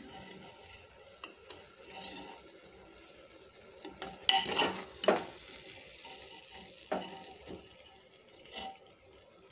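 Steel ladle stirring and scooping amla in a pot of boiling sugar syrup: scattered clinks and scrapes of metal on metal, the loudest a little before halfway, over a steady sizzle from the syrup cooking on high heat.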